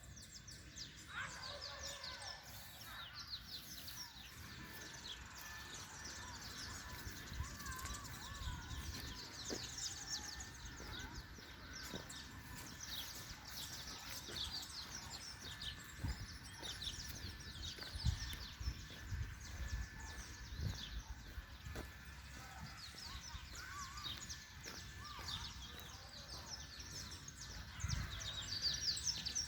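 Many small birds chirping in a forest: a busy chorus of short, quick, high chirps that continues throughout, with a faint steady high tone beneath and a few low thumps.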